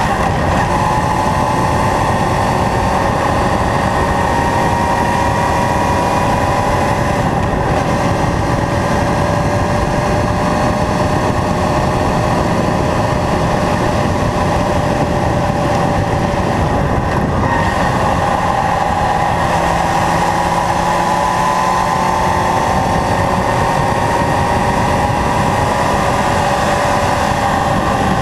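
Kawasaki Zephyr's air-cooled inline-four engine running at cruising revs on the move, its note drifting gently up and down, over a constant rush of wind and road noise.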